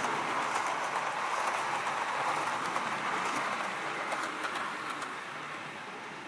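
OO gauge model InterCity 125 train running along the track close by, a steady rumbling hum with light clicks from the wheels, fading a little near the end as it moves away.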